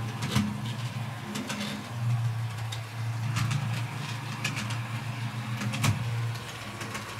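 MTB TT-scale model of a class 842 railcar running slowly: its small electric motor hums steadily, with light clicks from the wheels over rail joints and points.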